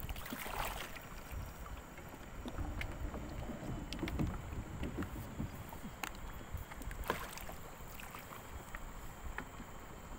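Water sloshing and splashing over a low rumble, with louder splashes about half a second in, near four seconds and about seven seconds in.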